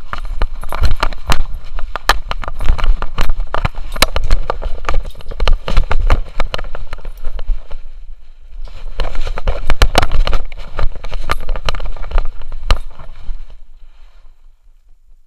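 Rapid, irregular knocking and rattling of an action camera strapped to a running dog, jostled with every stride. The clatter breaks off briefly about eight seconds in, then dies away near the end as the dog stops.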